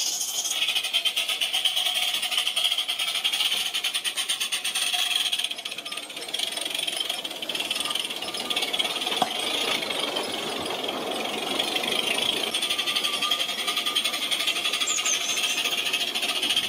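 Modified Cheddar Models Iver live-steam model locomotive running under steam, its exhaust making fast, even chuffs over a hiss of steam; briefly quieter about six seconds in.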